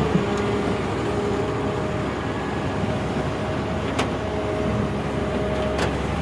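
Volvo excavator's diesel engine running steadily under work, with a steady whine from the hydraulics and two short sharp clicks, about four seconds in and near the end.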